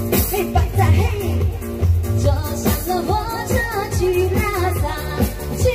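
A woman singing a Chinese pop song live into a handheld microphone over a backing track with a steady beat, both played through a street PA amplifier.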